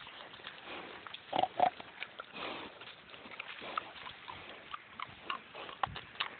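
Pigs grunting, with two short grunts about a second and a half in, among scattered small clicks and rustles.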